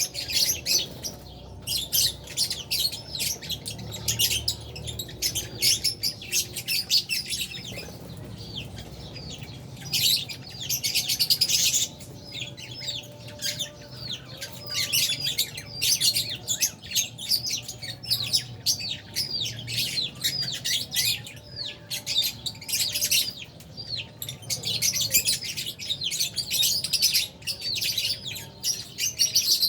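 A colony of lovebirds, including Fisher's lovebirds, chirping constantly, many birds at once in quick, overlapping high chirps, with a busier flurry about ten seconds in.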